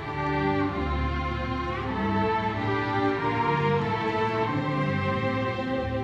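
Student string orchestra playing: violins, violas, cellos and double basses in slow held chords, the low notes changing every second or so.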